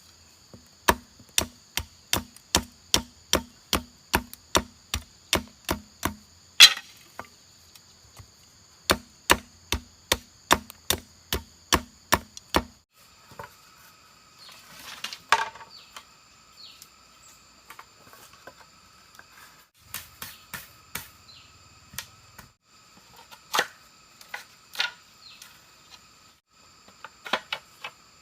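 Rapid, evenly spaced chopping strikes of a blade into bamboo, about two to three a second, pausing briefly midway and stopping about 13 seconds in, followed by a few scattered knocks. Insects buzz steadily in the background.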